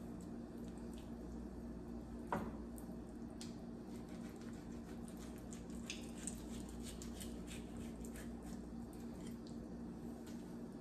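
Chef's knife slicing through raw salmon fillet on a bamboo cutting board: soft wet squishing with faint scattered ticks of the blade, and one sharper knock of the knife on the board about two seconds in, over a steady low hum.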